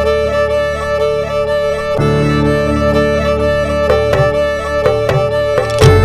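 Background music: steady held chords, with short sharp notes joining about four seconds in and a louder passage with heavy bass starting near the end.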